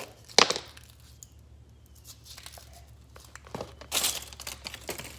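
Toy packaging being torn open and crinkled by hand, with a sharp rip about half a second in and another burst of crinkling and tearing about four seconds in.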